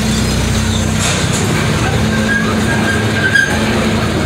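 Amusement-park miniature train running, heard from aboard: a steady low rumble and hum of the ride, with a faint high squeal for about a second midway.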